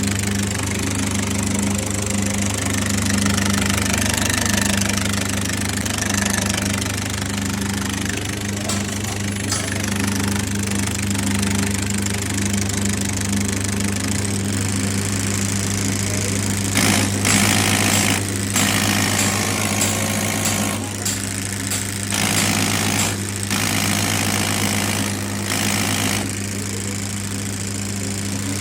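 Diesel fuel injection pump running on a test bench: a steady machine hum under a constant hiss, with louder bursts of hissing several times in the second half.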